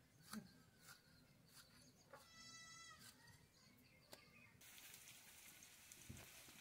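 Faint sounds: soft clicks of a tomato being cut against a curved floor-mounted blade, and a goat bleating once, briefly, a little over two seconds in. A steady faint hiss comes in about four and a half seconds in.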